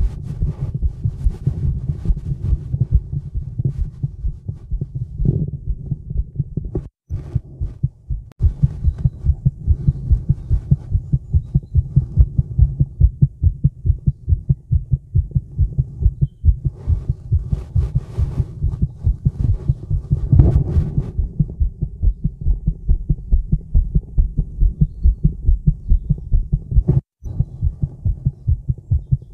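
A woman's heartbeat picked up by a microphone held against her chest: a steady, regular run of low thumps. Scratchy noises come and go, most around two-thirds of the way through, and the sound cuts out for an instant a few times.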